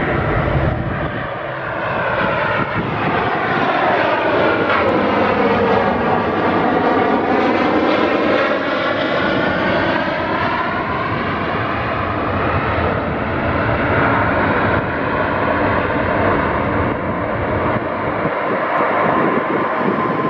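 Boeing 737-800's CFM56 jet engines as the airliner passes by on landing: a loud, steady jet rush whose tone sweeps down and back up like a phasing whoosh as it goes past.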